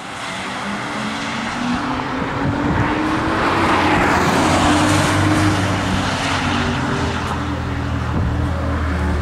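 Several sports car engines running in a pit lane, their steady notes overlapping, one note rising slowly in pitch. The sound grows louder over the first few seconds and swells into a louder rush of engine noise about four to six seconds in.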